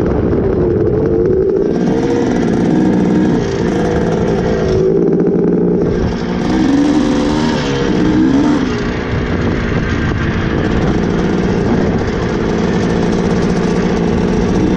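Two-stroke dirt bike engine being ridden, its pitch rising and falling with the throttle. The throttle eases off briefly twice, about half a second and about five seconds in.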